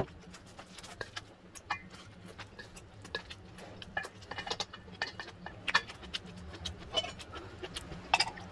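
Scattered light clicks and clinks of eating at a table: metal spoon and chopsticks on a stainless steel bowl, and near the end a ladle stirring ice in a glass, over a faint steady low hum.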